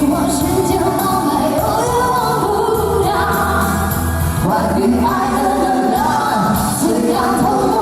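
A singer holding long notes over a pop backing track with a steady bass line.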